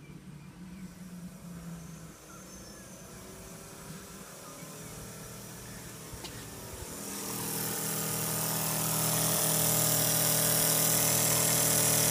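Graham twin-cylinder model steam engine running on compressed air, speeding up about seven seconds in as the air pressure is raised toward 20–25 psi, then running fast and steady with a loud hiss.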